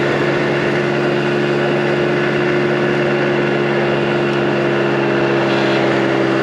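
2022 Mondial Turismo 80cc scooter's engine running under load while riding: a steady drone whose pitch sags slightly.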